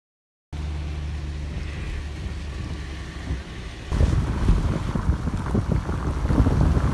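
Silence for about half a second, then the steady low drone of a car driving. About four seconds in it cuts to louder wind buffeting the microphone with road rumble, as from a camera held at a moving car's window on a wet road.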